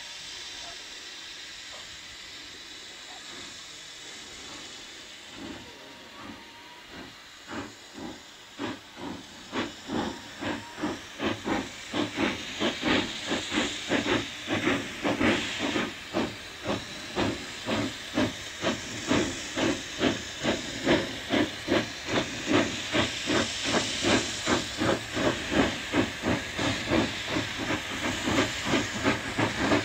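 Two steam locomotives double-heading a long freight train, their exhaust beats rising out of a steady hiss about six seconds in and growing steadily louder as the train approaches, at about two beats a second.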